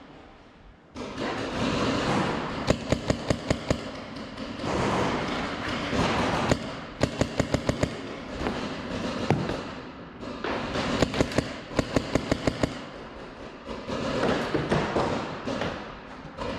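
Paintball markers firing in quick strings of shots, about seven a second, in several bursts, with more scattered shooting around them.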